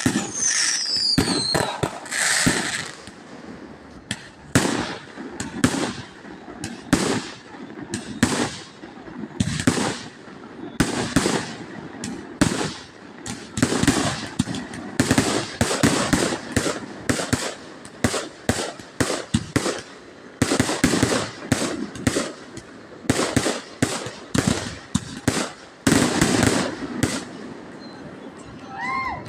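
Fireworks display: a dense, uneven string of loud bangs and crackling bursts, with a falling whistle about a second in.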